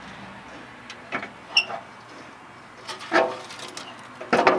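Scattered knocks and clanks of a 5th-gen Toyota 4Runner's original metal skid plate as it is worked free of the frame and lowered by hand. There is a short metallic ping about a second and a half in, and a louder clatter near the end that begins to ring.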